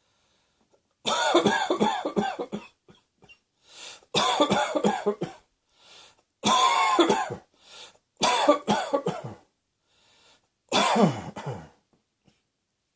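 A person coughing in five separate fits, each a quick run of several voiced coughs lasting about a second, with short breaths drawn in between the fits.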